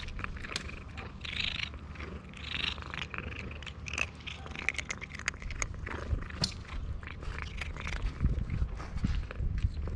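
Tabby cat purring steadily while it chews dry kibble: a low continuous purr under many sharp crunching clicks.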